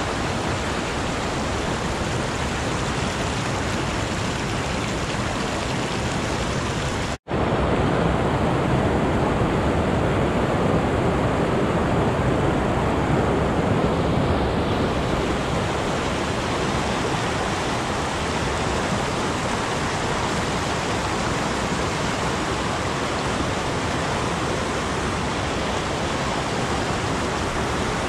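Fast mountain creek running in whitewater over boulders, a steady rush of water. It drops out for an instant about seven seconds in and comes back a little louder.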